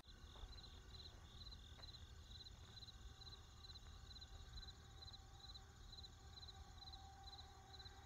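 Faint cricket chirping, an even rhythm of about two trilled chirps a second: a 'crickets' sound effect standing for awkward silence.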